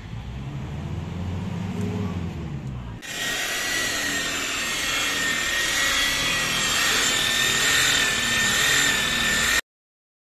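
Electric rotary car polisher running on the paintwork, applying the first coat of wax polish. A low rumble at first changes abruptly about three seconds in to a louder, steady high whine over a rubbing hiss, which stops suddenly near the end.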